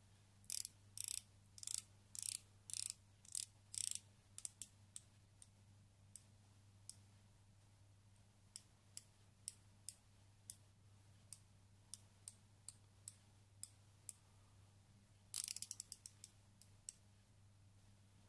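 Grand Seiko SBGE245G's 24-hour GMT bezel being turned by hand, ratcheting in clicks. It makes several quick runs of clicks at first, then single detent clicks about two a second, and a fast run of clicks near the end.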